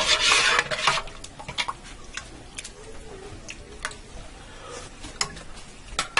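Metal spoon stirring broth in a stainless steel pot, scraping for about the first second, then a scattering of light metal taps and clinks against the pot.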